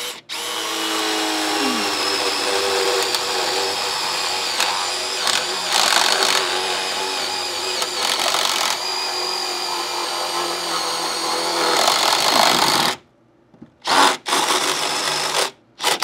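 Power drill running steadily for about thirteen seconds, its pitch dipping briefly early on, then stopping, followed by three short bursts of the trigger.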